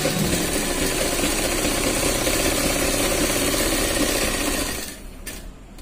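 Straight-stitch sewing machine running at a steady speed, stitching a folded hem, then stopping about five seconds in.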